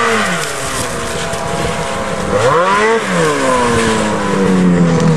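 Snowmobile engine revving as it rides up close, its pitch rising and falling with the throttle, then falling away near the end as it slows down.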